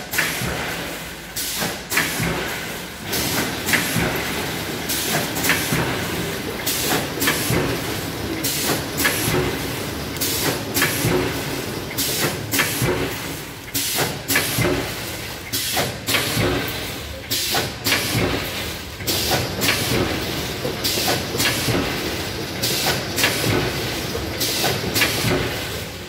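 Automatic vertical pouch packing machine running a continuous bagging cycle. A sharp hiss of air and a clack repeat about once a second over a steady mechanical whir.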